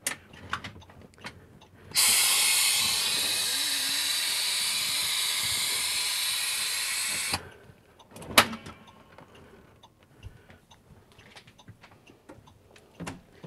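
Compressed air hissing from the school bus's air system, most likely the air brakes as the brake pedal is set: a steady hiss starts about two seconds in, eases off slightly over some five seconds and cuts off suddenly. A single sharp knock follows about a second later.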